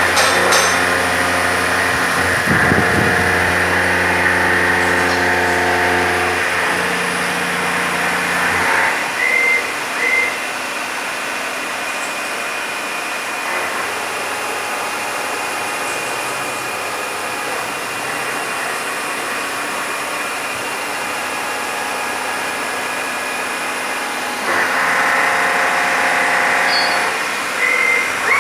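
Enshu SBV400 CNC milling machine running, its spindle and end mill cutting metal under flood coolant with a steady whine and grinding noise. The cutting noise drops to a quieter steady machine hum about nine seconds in, with a couple of short high squeals as it eases off, and returns in the last few seconds.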